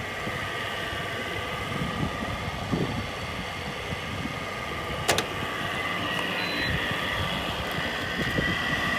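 Window air conditioner running, with a steady fan and motor sound and a steady high whine. Its bearings are bad. A single sharp click about five seconds in.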